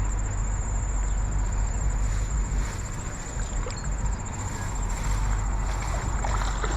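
Steady low rumble with a continuous high-pitched insect drone, like a cricket or katydid, over it; a few faint clicks scattered through.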